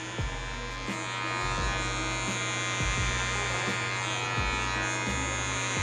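Electric hair clipper fitted with a 1.5 guard running steadily as it cuts short hair on the back of the head.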